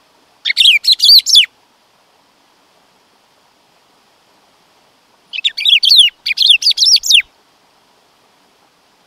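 Black-throated saltator (bico-de-pimenta) singing: three short phrases of quick, slurred, descending whistled notes. The first phrase comes near the start, and the other two follow back to back past the middle.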